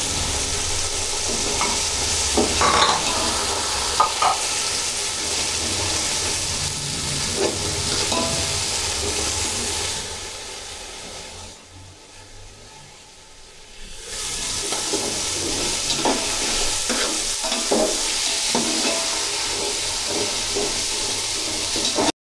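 Peas, carrots and onion sizzling as they fry in hot oil in an aluminium pot, with a metal slotted spatula scraping and clinking against the pot as they are stirred. The sizzle fades to a lull for a few seconds in the middle, then comes back.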